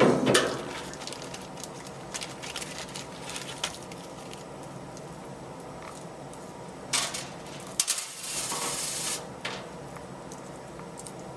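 Handling noise from tools and small hardware: scattered light clicks and taps, then a few sharper clicks and a rustle lasting about a second near the end.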